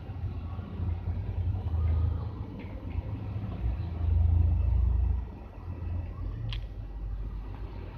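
Low engine rumble of a passing bus, swelling about four seconds in and easing off again, with one sharp click near the end.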